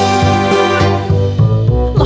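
Background music with held chords over a moving bass line.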